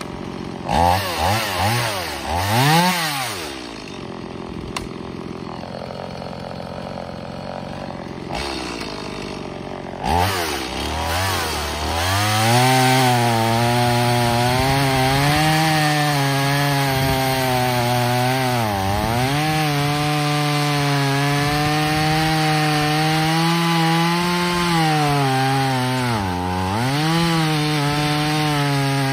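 Stihl MS 180 C-BE two-stroke chainsaw revved a few times, idling for several seconds, then held at full throttle cutting through a log round. The high steady engine note dips briefly twice during the cut.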